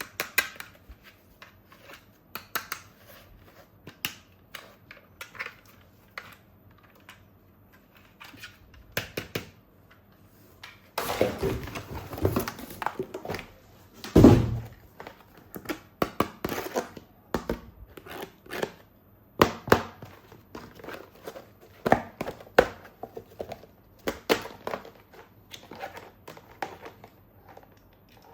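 Plastic toy guns and their packaging being handled during unboxing: scattered light clicks and knocks of plastic parts, a stretch of crinkling plastic wrap about eleven seconds in, and one heavier thunk a few seconds later.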